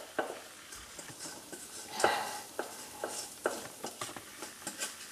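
A spoon scraping and clinking against the inside of a stainless-steel saucepan as sugar-coated almonds and hazelnuts are scraped out onto a silicone baking mat. Scattered sharp clicks, with a louder scrape about two seconds in.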